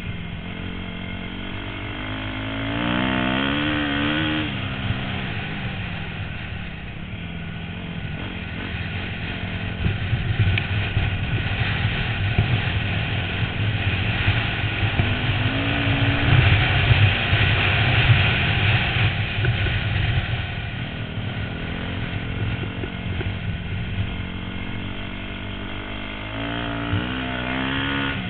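A 250 cc dirt bike engine running under hard riding on a dirt flat track, heard from a helmet-mounted camera. It rises and falls in pitch as the throttle is opened and rolled off a few times, and is loudest about two-thirds of the way through, with heavy rushing noise on the faster stretch.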